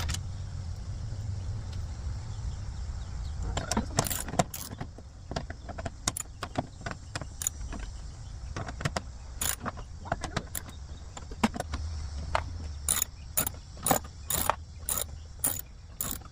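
Metallic clicks and clinks of hand tools working the bolts and screws on a car's inner door frame, with a low handling rumble underneath. Near the end the clicks settle into a regular run of about two a second.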